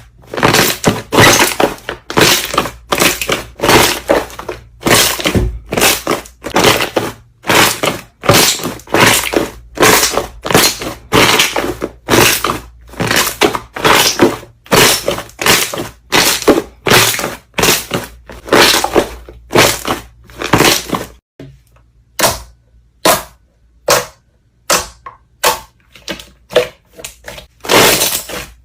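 Slime being squeezed and pressed by hand, making a long run of crunchy, crackling pops at about one to two a second. They pause briefly about three quarters of the way through and then come more sparsely.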